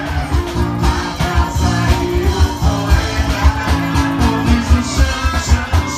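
Music with a steady beat and a bass line.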